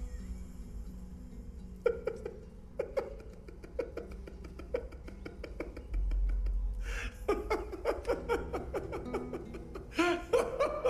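A man laughing: short breathy chuckles about a second apart, quickening after about seven seconds and breaking into loud open laughter near the end. A low rumble sounds about six seconds in.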